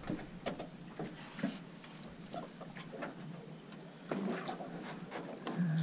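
Light, irregular ticking and clicking from a conventional fishing reel being cranked as a hooked fluke is reeled up to the boat.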